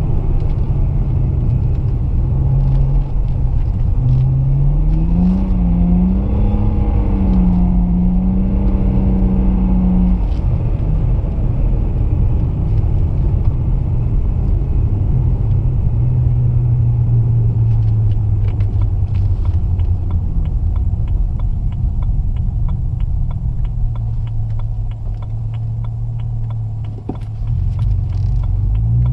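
A BMW 335i's twin-turbo N54 inline-six with catless downpipes, running while the car drives. The engine note climbs a few seconds in, holds higher until about ten seconds in, then falls back to a lower steady drone that dips briefly near the end before rising again.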